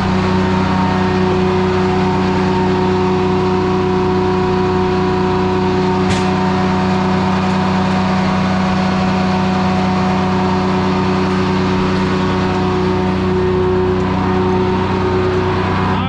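Belt-driven Corley circle sawmill running at a steady speed, a constant machine hum with several steady tones and no change in pitch. A single sharp click about six seconds in.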